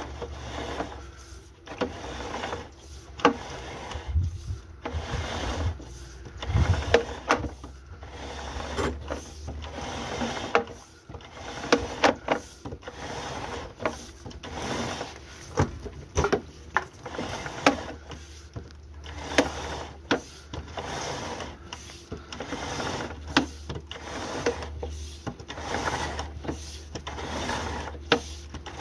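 Irregular knocks, clicks and rubbing, as of hard objects being handled, over a steady low hum.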